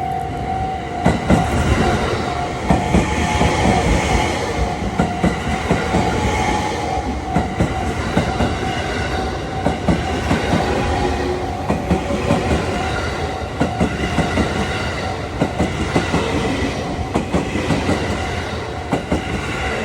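JR West Haruka limited express electric train running through a level crossing, its wheels clacking over the rail joints as the cars go by. A steady-toned crossing alarm keeps sounding underneath.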